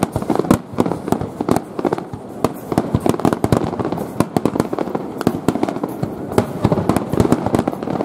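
Fireworks going off in a rapid barrage: many bangs and cracks, several a second, with no pause.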